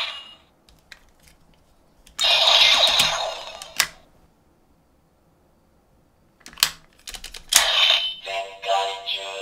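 Bandai DX Zenkaiju Gear toy playing electronic sound effects through its small speaker: a noisy burst about two seconds in ending with a click, sharp plastic clicks as the toy is switched between modes, then another burst leading into a short tune near the end.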